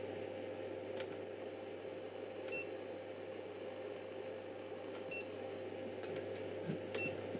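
Hantek DSO4204B digital oscilloscope giving three short key-press beeps as its front-panel menu buttons are pressed, with a faint click about a second in, over a steady low hum.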